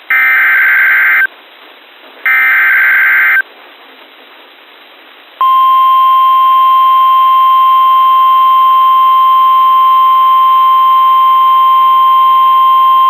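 Emergency Alert System SAME header: two short, screeching digital data bursts about a second apart, the end of the three-burst header. After a two-second gap a single steady NOAA Weather Radio 1050 Hz warning alarm tone starts about five seconds in and holds. It signals that a warning-level alert, here a severe thunderstorm warning, is about to be read.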